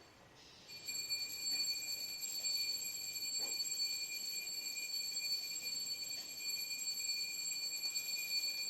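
A steady high-pitched whistle over a hiss, starting about a second in and holding unchanged.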